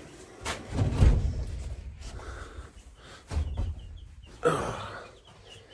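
Low bumps and rustling from birds being handled and set into a brooder pen, with breathy puffs and a few faint high peeps from baby chicks.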